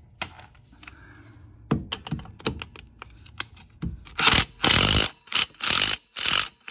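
Light clicks and knocks, then a cordless impact wrench hammering in five or six short bursts from about four seconds in, running down the half-inch nut that holds a Club Car DS golf cart's secondary clutch on its shaft.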